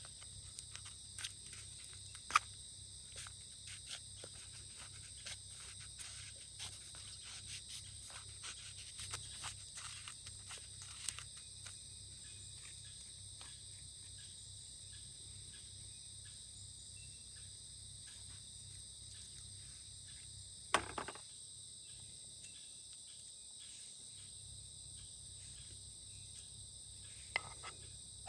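Insects chirring steadily in several high bands, with scattered small clicks and taps through the first half and a sharper knock about 21 seconds in.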